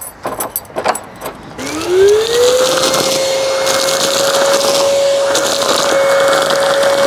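Keys clicking and rattling at a door lock. About a second and a half in, a Metabo cordless vacuum cleaner starts up: its motor whine rises in pitch and then holds steady as it sucks up wood shavings.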